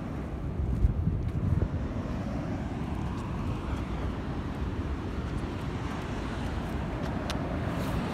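Steady low rumble of wind buffeting a phone microphone over the wash of the sea, with a single click near the end.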